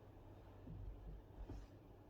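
Near silence: faint room tone with a low rumble and one soft tick about one and a half seconds in.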